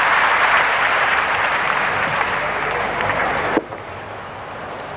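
Audience applauding in a large hall, easing slightly, then cut off abruptly about three and a half seconds in, leaving a quieter background.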